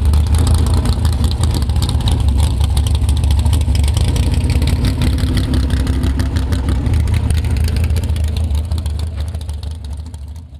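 Engine of a drag-built Chevrolet S-10 Blazer on slicks, idling with a pulsing exhaust at close range as it rolls slowly past, fading as it drives away near the end.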